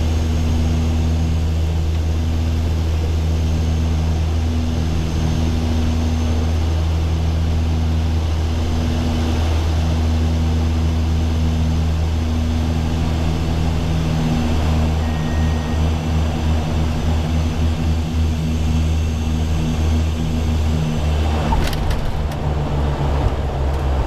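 The Dash 8-100's twin turboprop engines and four-blade propellers heard from the cockpit on final approach: a steady low propeller drone with a slow, regular throb. The drone turns uneven in the last third as the aircraft flares over the runway, and a short rumble comes about 22 seconds in as it touches down.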